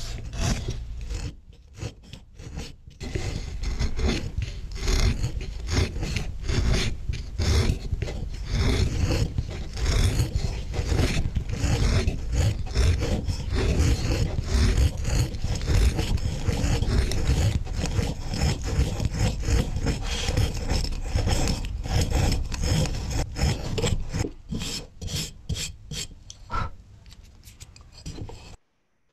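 Soundtrack of a hand-made animation: dense, scratchy rasping and rubbing noise made of many quick strokes, dipping briefly about two seconds in and cutting off suddenly near the end.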